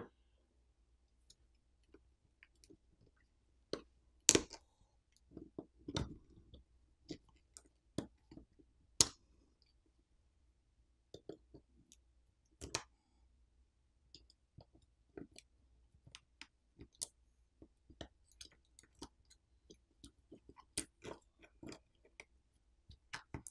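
Sparse small clicks and taps, irregularly spaced with quiet between them, as a precision screwdriver takes out the Phillips screws holding the OnePlus 11's main board and the board is handled and lifted out of the phone's frame.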